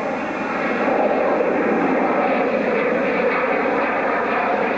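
Small airplane flying overhead, its engine sound steady, dipping slightly at first and then holding level.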